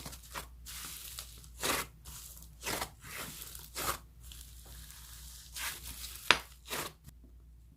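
Slime being pulled and torn apart by hand: a series of short tearing, crackling bursts, with a sharp snap about six seconds in, stopping near the end.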